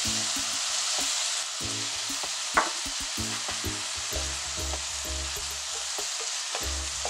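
Cubed pork with onions and garlic sizzling steadily in hot oil in a pan after vinegar and soy sauce have gone in, with a spatula stirring and scraping. A sharp click sounds about two and a half seconds in.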